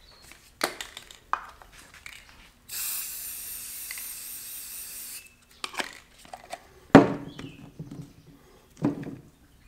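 Aerosol can of white spray paint spraying in a steady hiss for about two and a half seconds. A few sharp knocks come before and after it, the loudest about seven seconds in.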